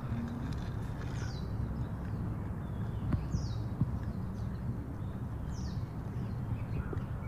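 A bird repeating a short, high, falling call three times, about two seconds apart, over a steady low background rumble with a couple of faint clicks.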